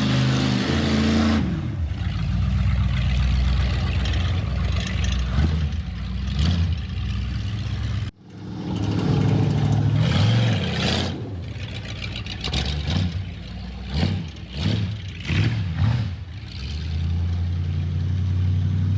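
Datsun A-series four-cylinder engine running on all four cylinders after an exhaust valve replacement, with the throttle blipped up and down several times in quick succession about two-thirds of the way through. The engine will not yet hold an idle. The sound breaks off suddenly about 8 s in and picks up again.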